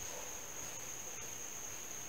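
A steady, high-pitched insect trill over faint outdoor background noise.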